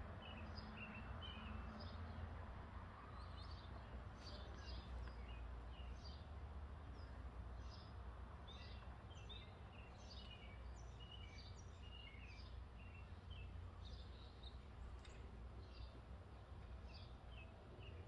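Small birds chirping faintly: many short, high calls, several a second and overlapping, over a steady low rumble.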